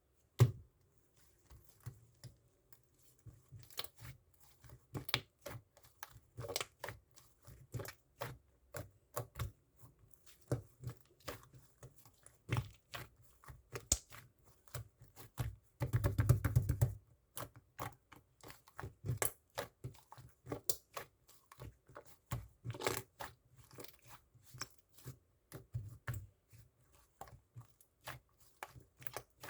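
Irregular small taps, clicks and rustles of hand-handling, with a longer, denser rustling burst about sixteen seconds in.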